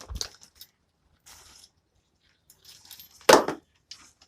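Handling noise while unpacking a boxed power tool and its accessories: a low bump at the start, a brief soft rustle, then a sharp knock about three seconds in.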